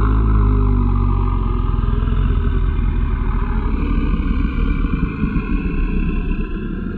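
Designed dinosaur-like monster roar sound effect: one long, low, rough creature roar held for about seven seconds, its pitch sinking slowly in the second half as it starts to ease off near the end.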